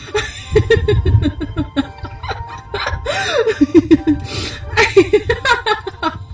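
A woman laughing in several bursts of short repeated notes, with music underneath.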